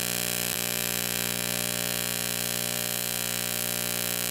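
AC TIG welding arc on aluminum, buzzing steadily with an even hum; the machine is set to a 50/50 AC balance with a standard 60 Hz sine wave.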